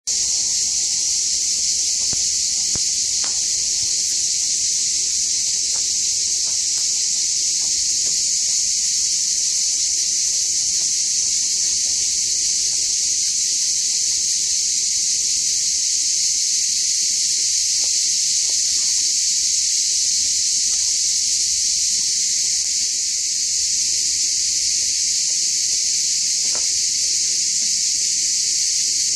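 Cicadas buzzing in a dense, steady, unbroken chorus. A few faint clicks sound beneath it.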